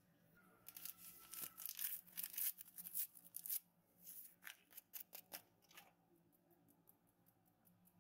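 Small mesh sieve being shaken and tapped as baking powder is sifted into the mixing bowl: quick, dry, scratchy rasping strokes, a dense spell in the first few seconds and a lighter one around the middle.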